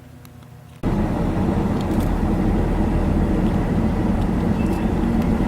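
An engine running steadily, starting abruptly about a second in with a low hum and a steady drone.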